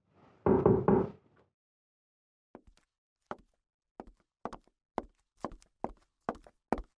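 Two heavy knocks on a door about half a second in, followed by hard-soled footsteps on a tiled floor, about two steps a second.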